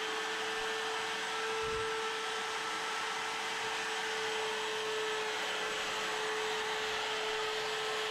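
Wood router running steadily with a constant high whine, cutting along a wooden window ledge to trim the chewed edge flat.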